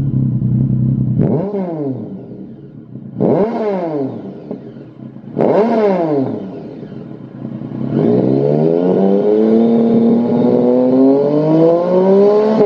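Triumph Tiger 1050's three-cylinder engine through a Lextek MP4 aftermarket silencer, free-revving: it idles, gives three quick throttle blips about two seconds apart, then holds a longer rev that climbs slowly for about four seconds before dropping back near the end.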